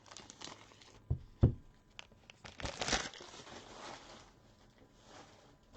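Soft crinkling of trading-card packaging with a few light knocks as cards and wrappers are handled.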